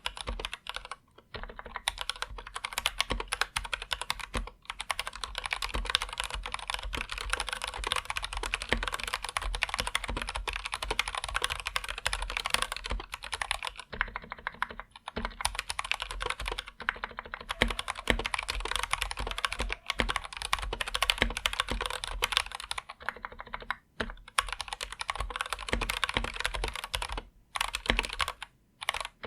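Typing on an Anne Pro 2 mechanical keyboard with linear Gateron Red switches: a fast, steady clatter of keystrokes, broken by a few brief pauses.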